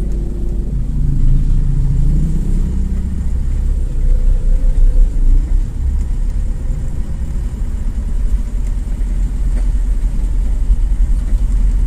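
Low rumble of a car's engine and tyres heard from inside the cabin as it creeps over a badly broken road surface, with uneven swells in loudness. A large diesel truck's engine hums past close alongside in the first few seconds.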